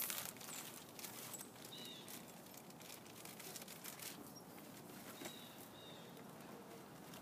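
Faint rustling and light clicks of small items handled in a plastic drawer unit, with a few short distant bird chirps.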